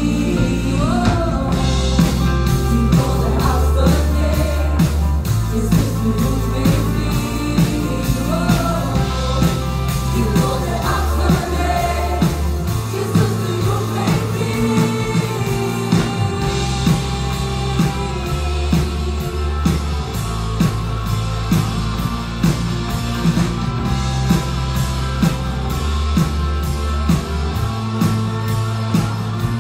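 Live worship band playing a Swedish worship song, with drums keeping a steady beat, bass and keyboards, and singers' voices over it, most prominent in the first half.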